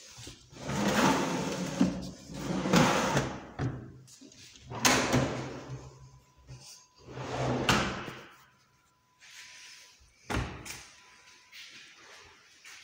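Kitchen cabinet drawers being pulled open and pushed shut on their runners, a long sliding rush each time, four times over. A sharp knock comes about ten seconds in as a drawer shuts, with lighter knocks near the end.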